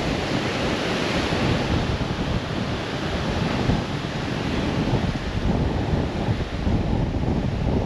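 Surf washing on the beach, a steady rushing noise, with wind buffeting the microphone.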